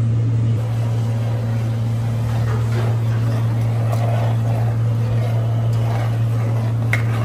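Steady low mechanical hum of kitchen equipment, with faint scraping and light clinks of metal tongs and a spoon stirring a thick sauce in a clay pot.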